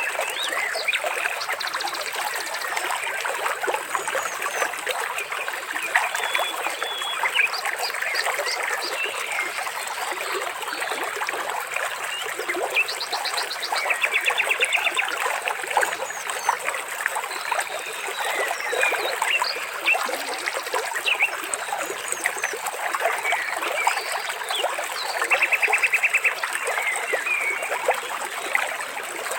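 Water trickling and splashing steadily, with birds chirping over it and a few short, rapid trills, one about halfway through and another near the end.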